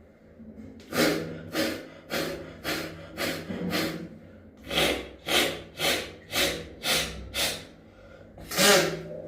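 Rapid forceful exhalations through the nose, about two a second, in two runs of six with a short pause between and one last stronger blow near the end: blowing the remaining water out of the nasal passages after jala neti.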